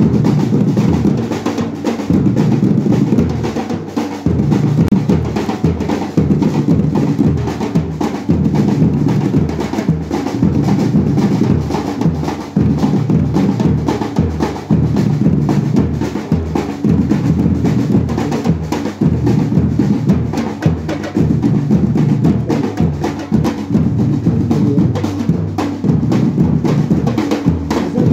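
A street drum troupe playing large strapped bass drums together with snare-type drums, a loud, steady, driving rhythm.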